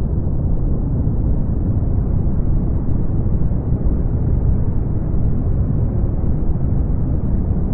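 Brown noise: a steady, deep rumbling hiss, strongest in the bass and with nothing above the low-mid range.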